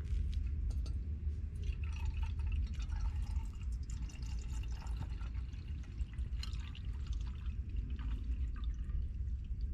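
Water being poured and trickling into a vessel for a while, over a steady low rumble.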